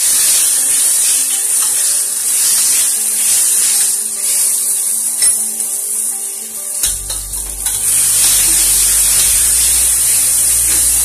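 Sliced onions, ginger-garlic paste and freshly added cumin seeds sizzling in hot oil in an aluminium pot while being stirred with a slotted spoon: a steady frying hiss. A low hum joins about seven seconds in.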